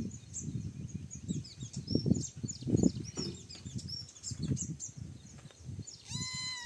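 Small birds chirping in quick short notes throughout, over irregular low rumbling bursts that are the loudest sound. Near the end comes one short, high pitched animal call.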